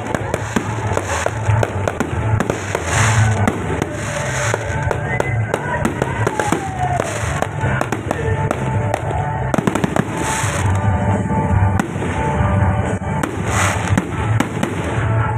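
Fireworks going off in a continuous barrage of rapid bangs and crackles, with music in the background.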